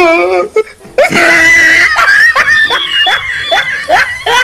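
High-pitched laughter: a short shrill cry about a second in, then a rapid run of rising laughs at about three a second.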